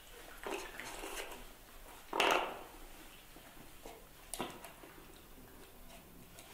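Soft scuffling and rustling as a baby monkey and a puppy move about on a cushion on a tiled floor, with a louder short noise about two seconds in and a brief sharp tap a little after four seconds.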